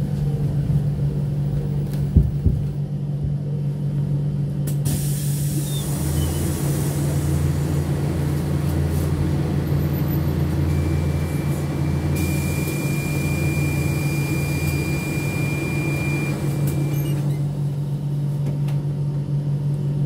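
Cabin sound of a KAMAZ-6282 electric bus standing at a stop: a steady low electric hum throughout, with a couple of sharp knocks about two seconds in. From about five seconds in a long hiss of air runs for some twelve seconds, with a steady high tone over its second half.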